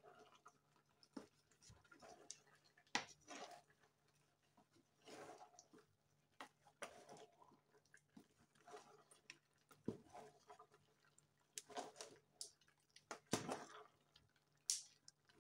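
A long spoon stirring thick, leafy soup in a large metal pot: faint, irregular squelching and scraping strokes with occasional sharper knocks of the spoon against the pot.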